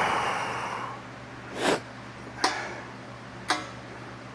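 Hand-handled metal engine parts or tools: two sharp metallic clinks about a second apart, the second ringing briefly. A rustling hiss fades out in the first second, and a short swish comes in between.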